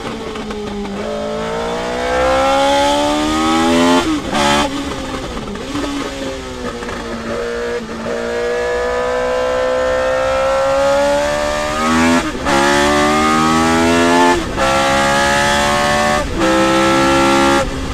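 Tyrrell P34's Ford Cosworth DFV V8, heard onboard, accelerating with rising pitch. About four seconds in the driver lifts off and the engine note drops. It then pulls hard again through the gears, with quick upshifts about every two seconds near the end, and lifts off just before the end.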